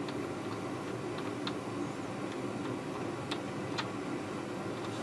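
Faint, scattered ticks and crackles from a soldering iron heating a wire with rosin-core electrical solder, over a steady low hum.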